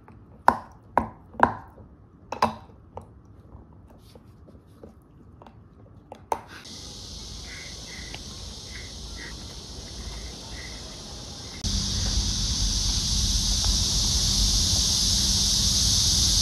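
A dog gnawing a rubber chew toy, a handful of sharp clicks about half a second to a second apart. Then a steady high hiss with faint repeated chirps comes in, and it gets suddenly louder, with a low hum, about twelve seconds in.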